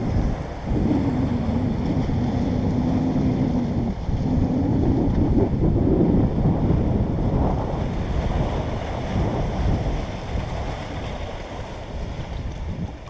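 Wind buffeting the microphone over surf washing against jetty rocks. A low wavering drone runs through the first several seconds.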